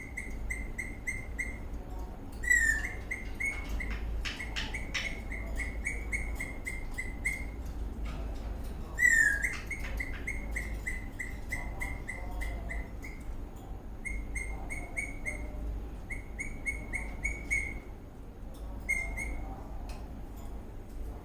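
Eastern rosella parrot chirping in quick runs of short repeated notes, broken by brief pauses, with two louder sliding whistles, one a few seconds in and one about nine seconds in.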